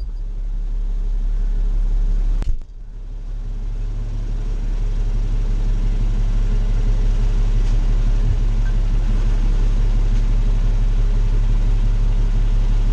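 Fire engine's diesel engine idling with a steady low hum while the rig stands still. There is a short click and a brief drop in level about two and a half seconds in.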